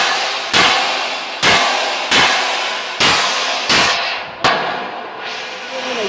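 Hammer blows on steel plate: about seven heavy strikes, roughly one every two-thirds of a second, each ringing on briefly. A curved steel flange strip is being hammered down against a steel web plate. The blows stop about four and a half seconds in.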